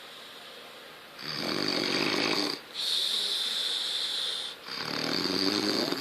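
Snoring in deep sleep: a loud snore about a second in, a hissing breath after it, then another loud snore near the end.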